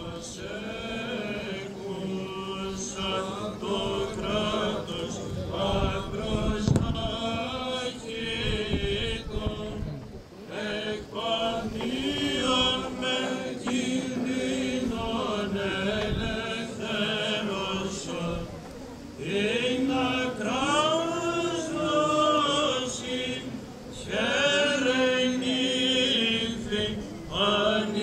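Greek Orthodox Byzantine chant: a voice sings long, slowly winding melismatic phrases with short breaks between them, over a steady low held note.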